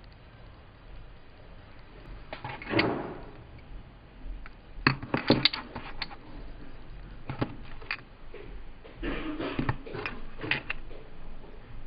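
Clear plastic lip gloss tubes being handled and set down on a table: scattered light clicks and taps of plastic, with a short rustling scrape about three seconds in.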